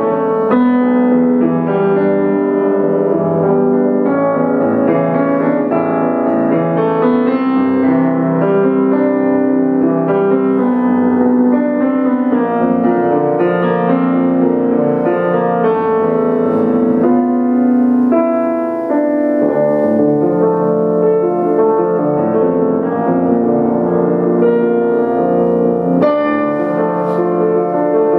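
Solo grand piano played live: a piano fantasy with chords and melody notes ringing over one another, at an even loudness throughout.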